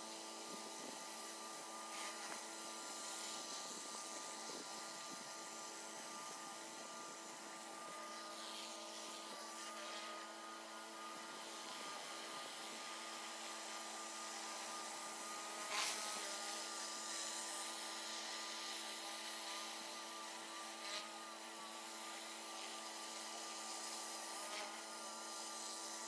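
Pressure washer running steadily, a buzzing machine drone, with a few brief hisses, the loudest about two-thirds of the way through.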